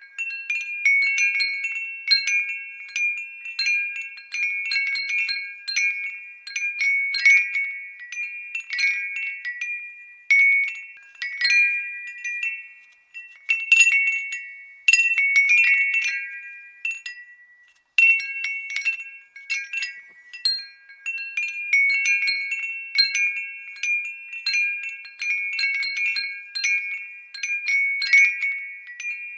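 Glass wind bell ringing: irregular clinks, each leaving a few high ringing tones that fade, with a couple of brief lulls between clusters of strikes.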